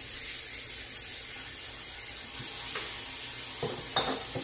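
Kitchen faucet running into the sink, filling it with soapy dishwater in a steady hiss, with a few light knocks near the end.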